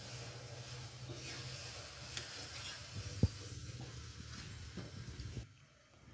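Ghee sizzling on a hot flat tawa griddle while a metal spatula scrapes under a corn-flour roti and lifts it off. There is a sharp knock about three seconds in. The sizzling cuts off shortly before the end.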